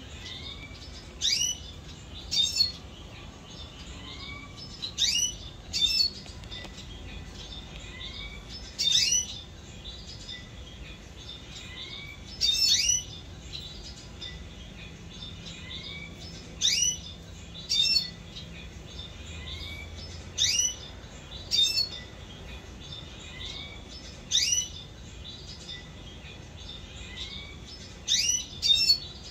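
Caged red siskins calling: short, sharp chirps, mostly in quick pairs every three to four seconds, with softer rising call notes repeating in between.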